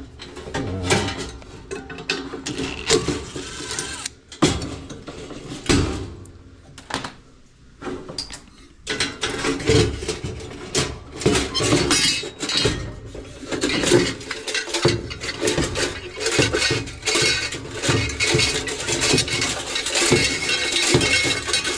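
Metal clanking, clinking and scraping as the heating element of a Whirlpool Duet dryer is worked loose and yanked out of its sheet-metal housing. The clatter goes quiet for a few seconds partway through, then resumes busier.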